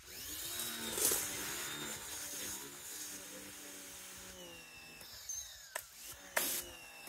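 FOTING electric pressure washer running: its motor and pump hum under load over the hiss of the water jet from the wand. The sound is loudest in the first few seconds and eases after about four and a half seconds, with a few sharp clicks near the end.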